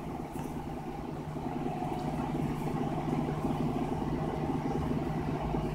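Steady low mechanical hum, like a motor or appliance running in the background.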